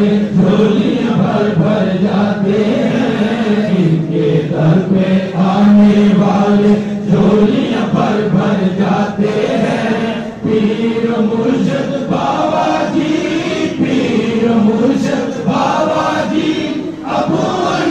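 Many men's voices chanting together in unison, a steady devotional chant with no break.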